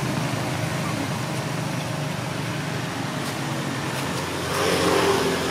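A steady rumble of distant road traffic, and about four and a half seconds in a brief, loud call from a long-tailed macaque.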